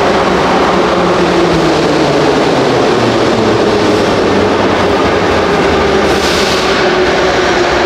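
Moscow Metro train approaching the platform, its running noise loud and steady, with a whine that sinks slightly in pitch as it comes in. A brief hiss comes about six seconds in.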